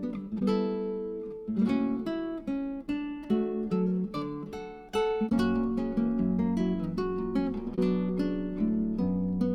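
Background music on acoustic guitar: chords struck and notes plucked in a steady rhythm.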